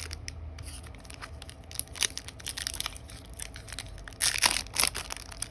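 Foil trading-card booster pack being handled and torn open: a run of crackling crinkles, with the loudest rips a little past four seconds in.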